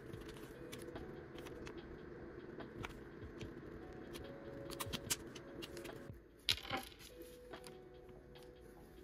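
Heat-transfer vinyl being weeded with a pen-style weeding hook: faint scratches and small clicks as the tool picks at the cut vinyl on its backing sheet, with a louder crinkle as a piece is peeled away about six and a half seconds in.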